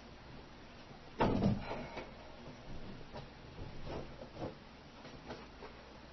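Faint indoor handling noises: a thump with a brief rustle about a second in, then scattered small knocks and clicks.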